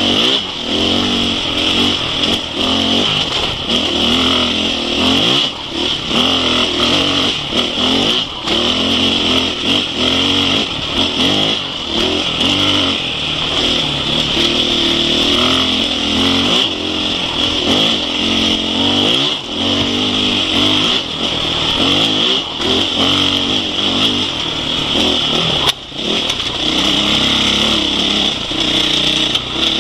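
Husqvarna 501 Enduro's single-cylinder four-stroke engine under way on a dirt trail, its pitch rising and falling over and over as the throttle is worked.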